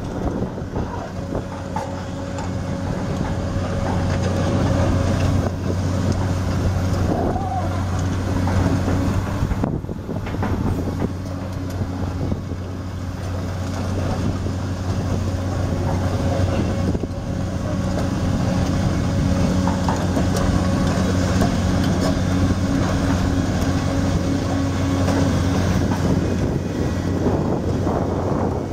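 Hyundai Robex 290LC-3 long-reach excavator's diesel engine running under load with its hydraulics working as the long boom is raised, lowered and swung: a steady low drone with a whine that comes and goes.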